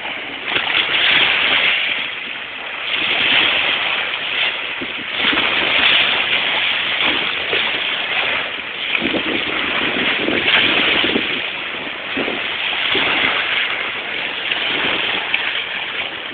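Small waves washing onto a gravel lakeshore: a steady rushing hiss that swells and ebbs every couple of seconds, with light splashing as dogs wade in the shallows.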